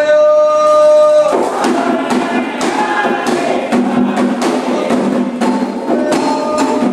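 Candomblé ritual music: a voice holds one long sung note, and from about a second and a half in, singing goes on over quick, sharp percussion strikes.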